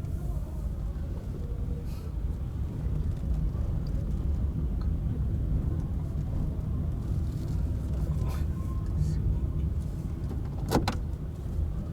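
Car driving slowly, recorded from on board: a steady low engine and road rumble, with a few faint knocks and one sharp click near the end.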